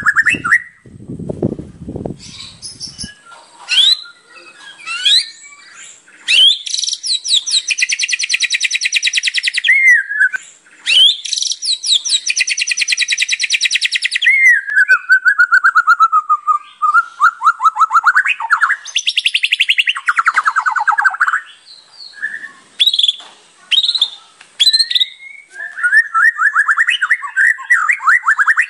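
White-rumped shama (murai batu) singing a long, varied song packed with imitated phrases. It runs through long rapid rattling trills, a falling run of quick notes, and short whistles and rising chirps.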